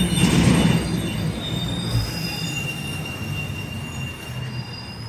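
Passing train out of sight: a low rumble with high, steady metallic wheel squeal at several pitches, loudest at the start and fading away.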